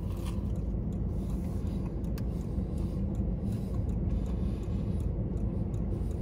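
Steady low rumble inside a parked car's cabin, the engine idling, with a few faint clicks of chewing.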